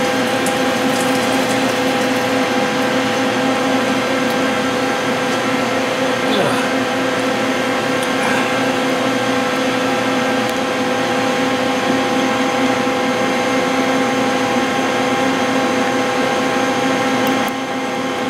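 Metalworking machine running steadily: a constant motor hum with a steady whine over a hiss, dropping a little in level near the end.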